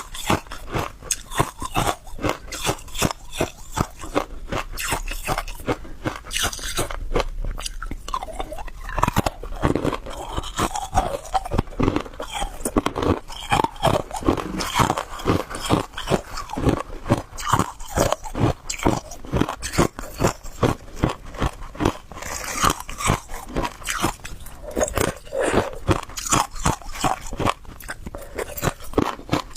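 Close-miked crunching and chewing of hard ice: rapid sharp cracks and crackles as ice is bitten and ground between the teeth, several a second without a break.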